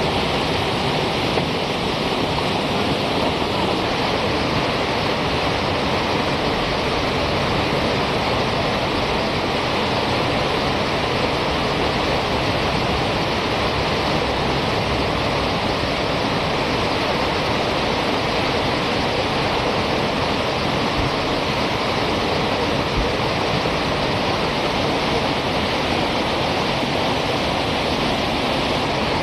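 Whitewater rapids rushing steadily: an even, unbroken noise of churning river water.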